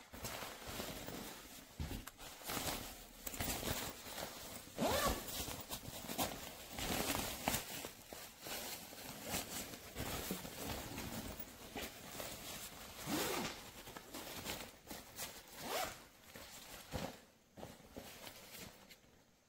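Zipper on a hardside suitcase being pulled along in uneven, stop-start runs, rasping throughout and stopping near the end.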